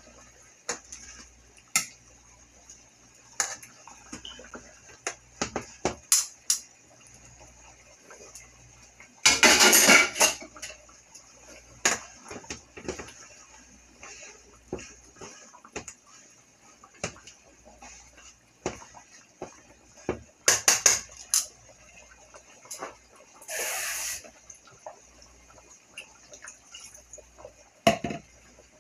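Metal tongs clicking and scraping against a metal skillet as cube steaks are turned in gravy, over steady faint bubbling from the simmering pans. Two louder noisy rushes, one about ten seconds in and one near the end.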